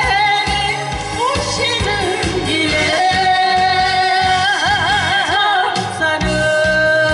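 A woman singing a song into a microphone over instrumental accompaniment with a steady beat, holding long notes with a wide vibrato.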